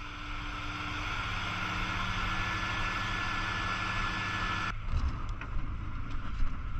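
Steady rushing hiss of a fire nozzle's water stream spraying from the ladder tip, with a faint steady hum under it. It cuts off abruptly about two-thirds of the way through, leaving uneven wind noise on the microphone and a few knocks.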